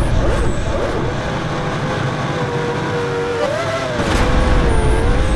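Formula One race car engine running at high revs, its pitch holding steady and then wavering up and down from about three and a half seconds in.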